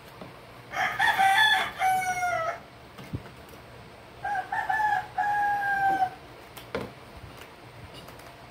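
A rooster crowing twice, each crow ending in a long held note; the second crow starts about four seconds in.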